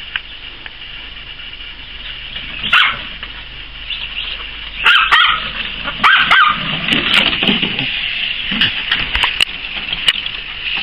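Poodle puppy barking and yipping in short calls, the first about three seconds in, coming more often in the second half.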